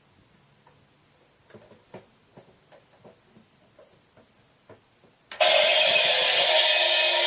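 A few light plastic clicks from handling the Lalaloopsy alarm clock radio, then its alarm suddenly starts about five seconds in and keeps sounding, loud and ear-splitting.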